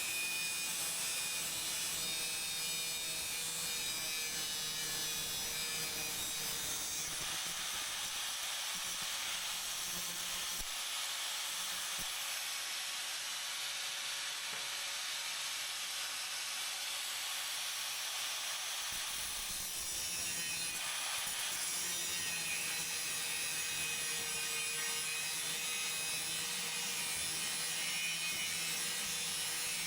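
A power tool working steel with a steady rasping noise that runs on without a break; a low motor hum underneath drops away for several seconds mid-way and then returns.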